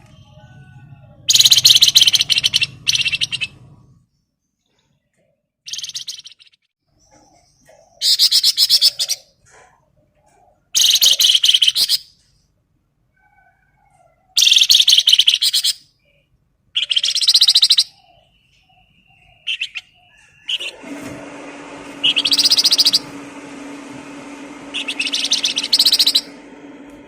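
A songbird singing loud phrases of rapid, high trilled notes, each phrase a second or two long, separated by short pauses. From about three-quarters of the way in, a steady low hum runs underneath.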